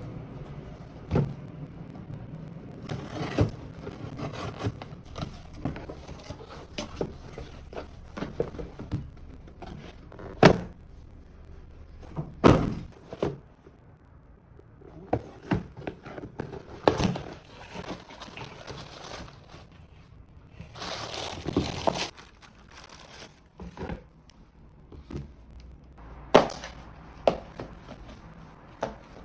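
Irregular knocks and thuds of objects being handled and set down, with stretches of rustling in between.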